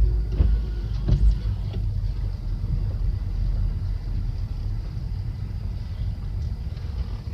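Car interior noise while driving: a steady low rumble of engine and road, with a few light knocks in the first couple of seconds.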